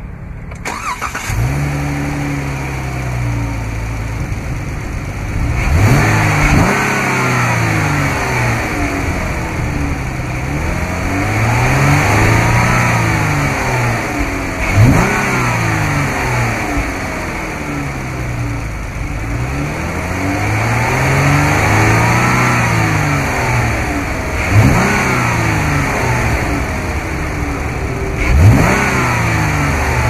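2016 Dodge Charger's 3.6-litre Pentastar DOHC V6 starting about a second in and settling to idle. It is then revved repeatedly: about four quick, sharp blips, plus two slower climbs in pitch that fall back to idle.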